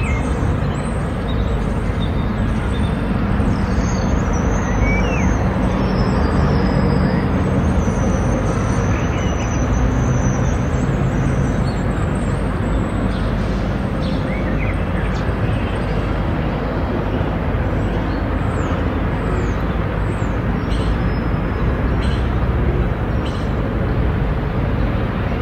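Steady outdoor city ambience: traffic noise, with a few faint short high chirps.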